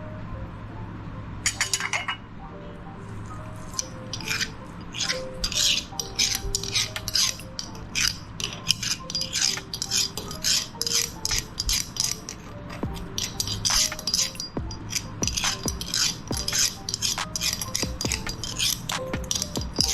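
Meat grinder crushing chocolate bars and cones: a dense, irregular run of sharp crackling clicks over a steady low hum, with background music.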